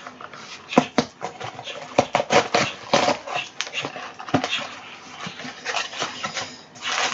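Cardboard ice-cream carton being opened and its packaging handled: a busy run of short crackles, rustles and clicks.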